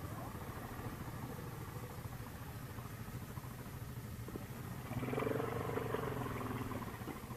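Yamaha Grizzly ATV engine idling with a steady low hum, then revving louder for about two seconds, starting about five seconds in.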